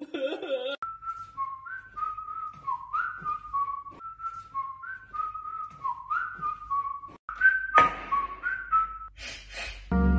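A person whistling a short melody, a phrase of stepped and sliding notes repeated several times. A sharp knock comes near the end, followed by two brief rustling bursts.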